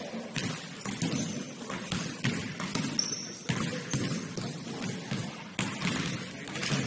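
Basketball bouncing on a gym court during play: irregular thuds and footfalls, with a brief high squeak about three seconds in.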